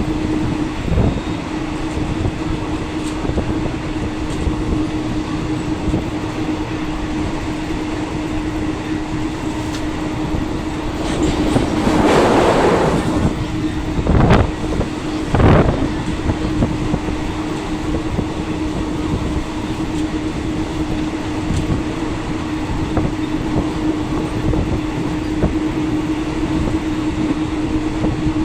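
Passenger train running along the track, heard from inside a second-class fan-cooled coach with open windows: a steady rumble with a constant hum. About eleven seconds in, a louder rush of noise lasts two seconds, followed by two sharp bangs a little over a second apart.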